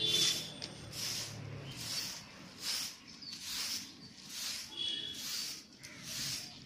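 Grass broom sweeping a brick-paved yard: a regular run of short swishes, about one a second.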